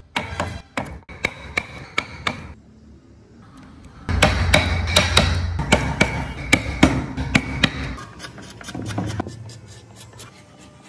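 Wood chisel struck repeatedly, cutting into a solid wood block: a run of sharp knocks in the first couple of seconds, then a louder, denser run of about three knocks a second from about four seconds in until about eight.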